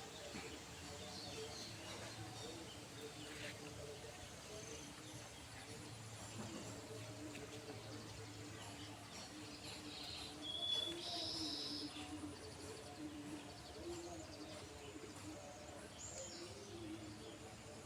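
Rural outdoor ambience with birds chirping now and then over a low steady background; the loudest run of high chirps comes about ten seconds in.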